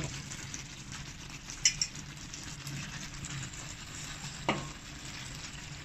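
Spiced curry masala sizzling in a pan as pieces of vegetarian mutton are stirred into it, with two sharp clicks of the utensil a little before two seconds in and a louder knock at about four and a half seconds.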